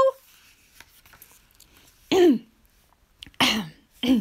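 A woman clearing her throat in a theatrical "ahem": three short throat-clearing sounds, the first falling in pitch.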